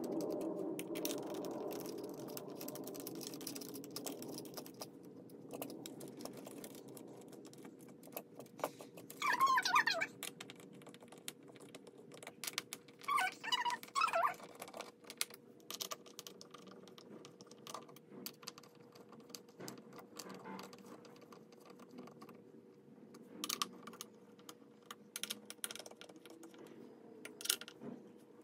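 Scattered light clicks and taps, with a few short squeaks, from computer chair parts being handled and fitted together, over a faint steady hum.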